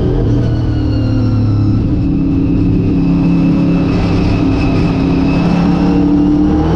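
Late model race car's V8 engine running hard, heard from inside the car, its pitch holding fairly steady with slight rises and dips.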